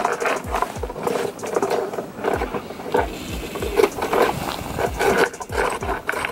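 Snow being crunched and scraped in a run of irregular strokes, several a second, with dull low thumps among them.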